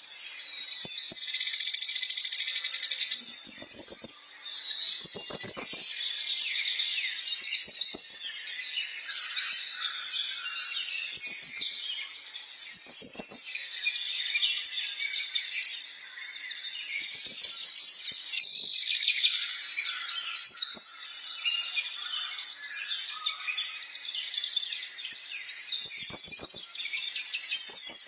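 Many small birds chirping at once, a dense, continuous chatter of overlapping high calls, with a few faint knocks now and then.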